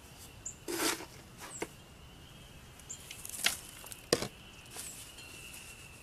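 Gloved hands working damp sand over a mold: a few soft scuffs and pats, one a sharp tick about four seconds in.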